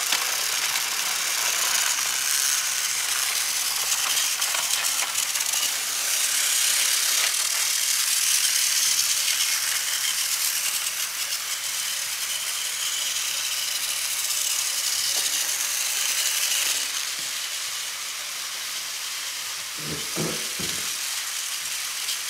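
Several battery-powered toy train engines running on plastic track: a steady, high-pitched rattle of small motors, gears and wheels, easing slightly in level after about seventeen seconds.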